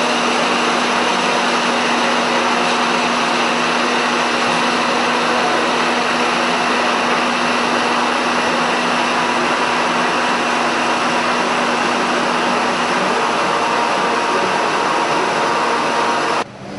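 Electric kettle at a rolling boil: a loud, steady rushing noise with a faint low hum under it that fades about two-thirds of the way through. The sound cuts off abruptly near the end.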